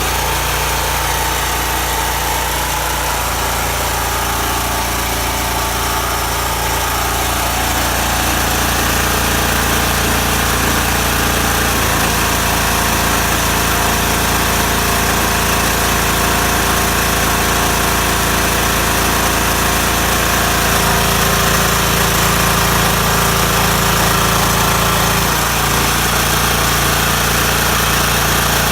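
Champion portable generator's engine running steadily under the load of an electric heater. Its tone shifts about twelve seconds in and again near the end, as the heater's load setting changes.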